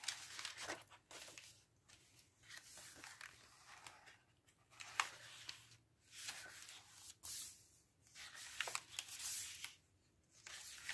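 Pages of a paper craft pad being turned and handled: a series of dry paper rustles and flaps, about five or six, each a second or two long.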